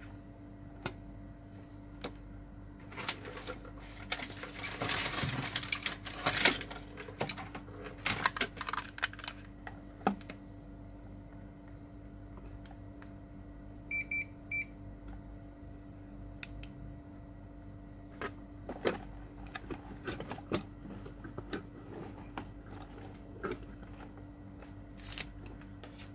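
Workbench handling noises: scattered clicks and crinkling as tools and small parts are handled, with a denser stretch early on. Three short, high electronic beeps come in quick succession about halfway through, over a steady electrical hum.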